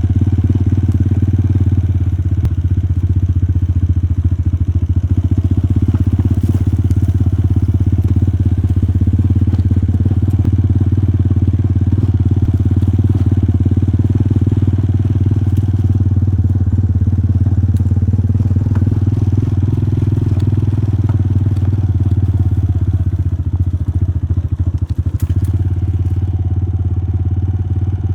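A small engine running steadily at an even speed, with no rise or fall in pitch.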